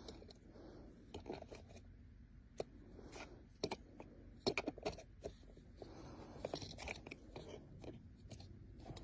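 Hands handling small plastic parts: a string of irregular light clicks and crinkles, with the loudest cluster of clicks about halfway through.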